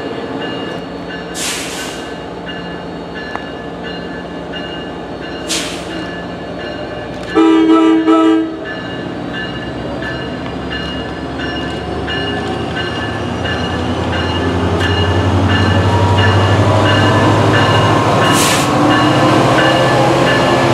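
NJ Transit PL42AC diesel-electric locomotive sounding two short horn blasts about seven seconds in, the second following straight on from the first. Its diesel engine rumble then builds as the train, hauling multilevel coaches, draws up and passes close by.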